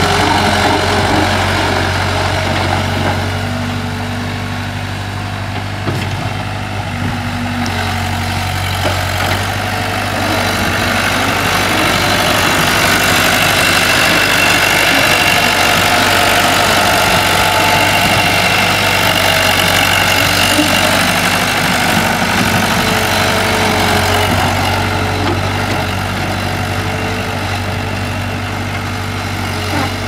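New Holland L785 skid steer loader's engine running as the machine drives about, a steady low engine tone whose level rises and falls as it moves.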